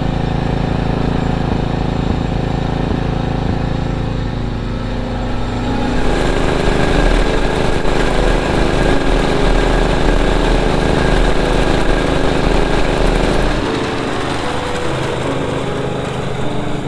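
Ford F-650 truck engine running steadily. About six seconds in it grows louder with a rushing noise on top, then eases back to a steady run about three seconds before the end.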